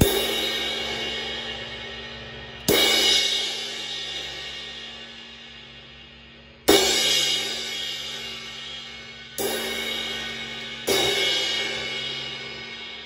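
Turkish crash cymbal struck with a wooden drumstick five times, each crash a bright shimmering wash that slowly fades before the next hit.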